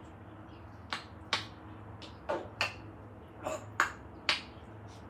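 African grey parrot making a series of sharp snapping clicks, about seven of them at irregular gaps over four seconds.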